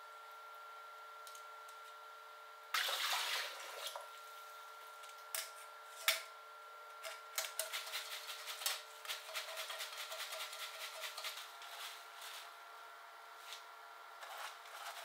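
Washed salad greens being drained at a kitchen sink: a brief splash of water about three seconds in, then quick rattling and clicking as the stainless mesh strainer is shaken in its stainless steel bowl to shake the water off the leaves.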